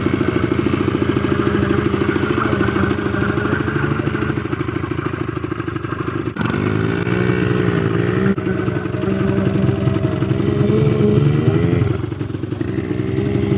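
ATV engine running while riding, its pitch rising and falling a few times as the throttle changes.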